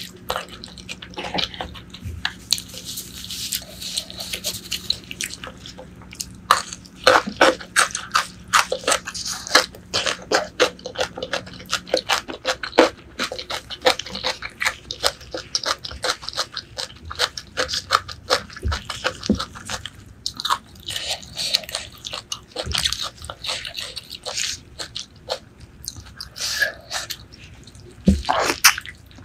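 Close-miked chewing and biting of braised pork leg: a dense, irregular run of wet, sticky mouth clicks and smacks, busiest about a third of the way in and again near the end.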